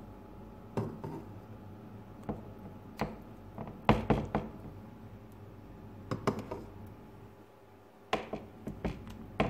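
Irregular light knocks and taps of a spoon and dish as pizza sauce is scooped and dolloped onto dough on a metal pan lid, with a small cluster of knocks about four seconds in and a few more near the end.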